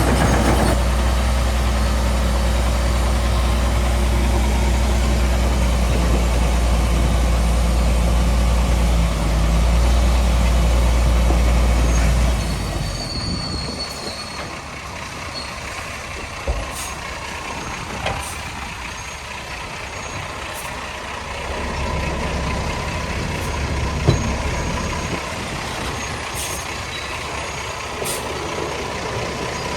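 Heavy diesel earthmoving machinery engine running steadily at a deep, even pitch. About twelve seconds in it drops away to a quieter engine sound, with a few sharp clanks and knocks later on.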